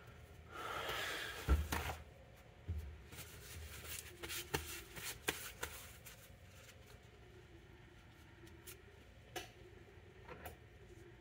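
Small tools and parts being handled on a hard tabletop: scattered light clicks and taps, with a brief rustle about a second in.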